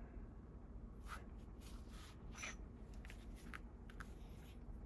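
Faint, scattered light clicks and rubbing as parts of a cast-iron leather splitter are handled, over a low steady hum.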